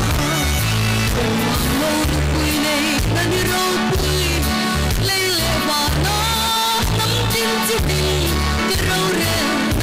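A woman singing a gospel song into a microphone, amplified through a PA, over a band accompaniment with a steady, repeating bass line.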